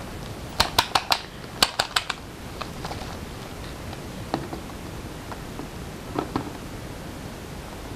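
Sharp hard clicks and knocks from a blender jar being handled with the motor off. A quick run of about eight taps comes in the first two seconds, then a few scattered clicks, with a pair near the end as the jar is seated back on its motor base.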